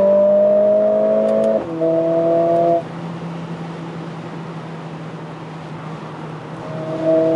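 Mercedes-AMG CLA 45 S's turbocharged 2.0-litre four-cylinder pulling hard at highway speed, its note rising slowly, then breaking off about a second and a half in as the gearbox shifts from fourth to fifth. It pulls for another second, drops to a quieter steady drone as the throttle eases, and pulls hard again near the end.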